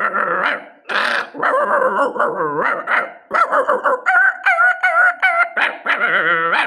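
A person imitating a dog with the voice: barks and yelps, then high wavering whines, ending in a rapid quavering whimper.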